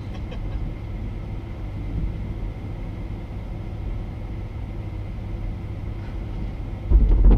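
Steady low rumble of a vehicle, with a sudden loud, deep rumble near the end.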